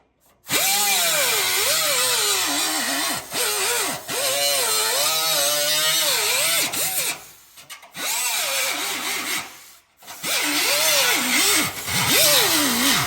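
Handheld power tool cutting a clearance in the car so the turbo intake's charge tube can reach the throttle body. It runs in four stretches, its motor pitch sagging and recovering as it bites under load.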